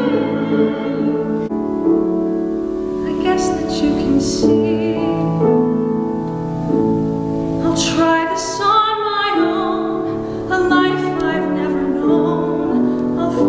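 A woman singing in classical operatic style with vibrato, accompanied by a Steinway grand piano. The music changes abruptly about a second and a half in, at an edit into a new passage.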